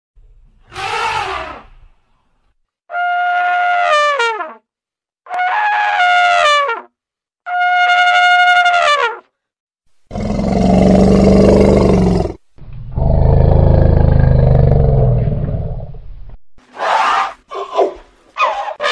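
Elephant calls: four separate trumpet blasts, each falling in pitch at its end, then two long, low roars, then a quick run of short trumpeting squeals near the end.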